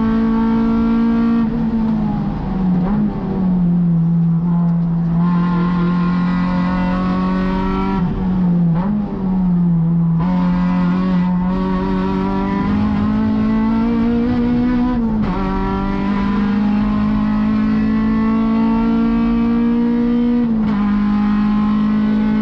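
Acura RSX-S's 2.0-litre four-cylinder engine at racing speed, heard from inside the cockpit, running with no VTEC. The engine note holds steady and dips twice. It then climbs over several seconds and drops back a little, twice.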